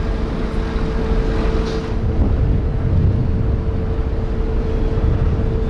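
Steady low rumble of the ferry Blue Star Patmos's machinery running, with a constant mid-pitched hum over it and wind buffeting the microphone.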